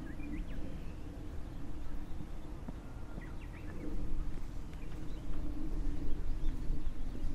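Wind rumbling and buffeting on the microphone, with footsteps on the hill trail and a few faint, short bird chirps.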